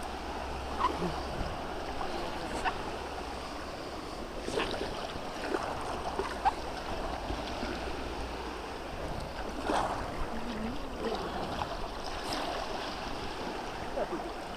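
River water flowing and lapping around a kayak, with short splashes or knocks every few seconds.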